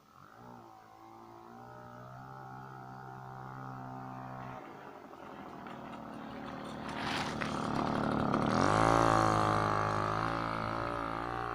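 Puch moped's freshly rebuilt E50 two-stroke engine running after its first start, its note wavering and rising as it is revved, getting louder toward about nine seconds, then easing off.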